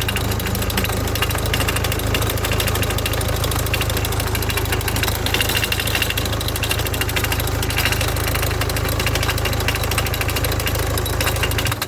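Hyundai Tucson 2.0 CRDI four-cylinder diesel engine idling with a fast, steady clatter and a rattle that swells every few seconds. The noise comes from a damaged clutch release (throw-out) bearing, which makes the clutch fork jump.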